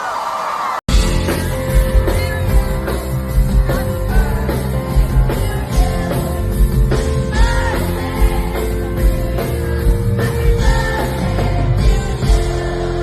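Live band music with singing and a steady drum beat, a hit about every 0.8 seconds. The sound cuts out for an instant a little under a second in, where the recording is edited.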